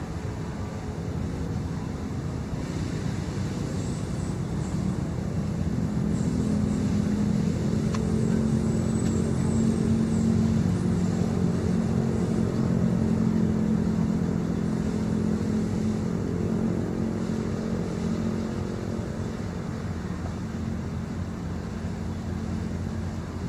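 A motor vehicle's engine humming steadily, swelling louder through the middle and then easing off.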